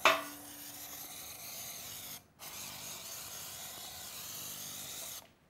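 Cooking-oil spray hissing onto a baking tray in two long sprays, with a short break a little over two seconds in: the tray is being greased.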